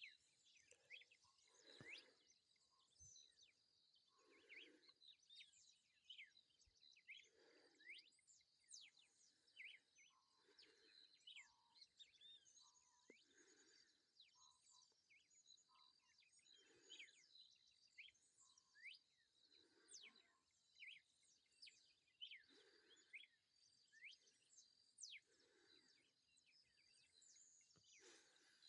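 Faint red-cowled cardinal song: short phrases repeated about once a second, pausing for a couple of seconds midway, with high chirps from other birds and a steady high-pitched hum behind.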